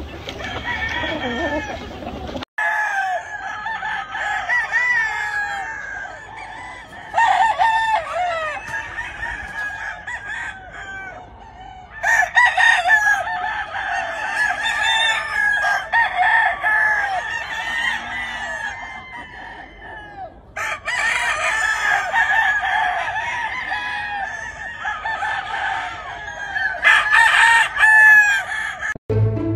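Many gamefowl roosters crowing and clucking over one another. The sound breaks off abruptly and starts again several times.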